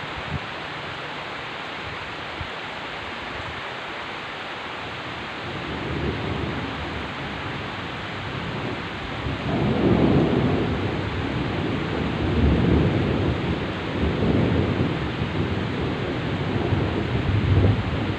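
Heavy rain falling steadily, with a long roll of thunder that builds about a third of the way in and then rumbles loudly, swelling and fading several times.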